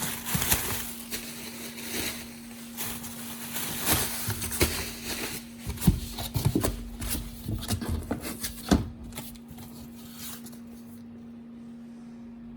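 Hands handling and opening trading card packaging: crinkling plastic wrap and card, with irregular clicks and a few sharper knocks. It stops about ten seconds in, leaving a steady low hum that runs underneath throughout.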